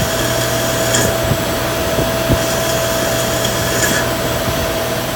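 Yang CNC lathe cutting bar stock dry, running steadily with a constant whine over a broad hiss. A few light clicks come through at irregular intervals.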